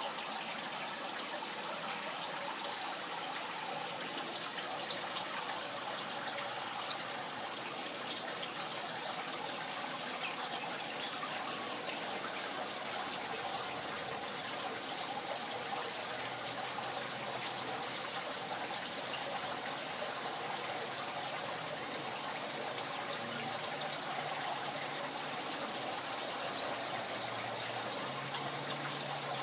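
Water from a DIY pond biofilter's outlet tray trickling and splashing steadily back into a goldfish pond.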